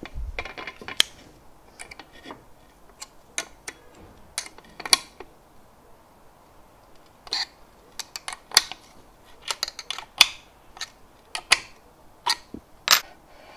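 Hand wrench working the M5 screws of a wheeled gantry plate on aluminium V-slot extrusion: irregular sharp metallic clicks and taps, with a short pause in the middle, as the loose plate is tightened.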